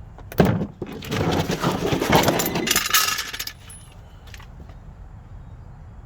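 A sharp metallic clank, then about three seconds of metal clinking and rattling that stops suddenly, the sound of metal gear being handled while getting ready to jack up a car.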